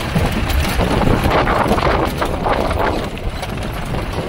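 Off-road jeep driving over a rocky dirt track, heard from inside the vehicle: a continuous low engine and road rumble with irregular knocking and rattling as it jolts over the stones.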